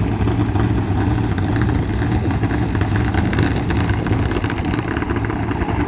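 A car engine running steadily at idle, a deep, even rumble that neither revs up nor dies down.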